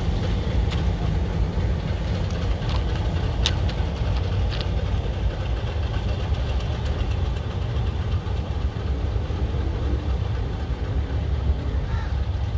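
Diesel locomotive engine running at low revs while shunting, a steady low rumble with a few faint clicks.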